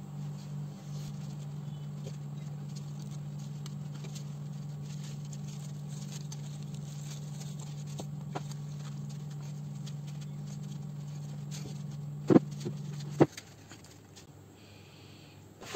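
Sheets of white paper being handled and folded into a pinwheel shape: faint light rustles and taps over a steady low hum. Two sharp knocks come near the end, and the hum cuts off with the second.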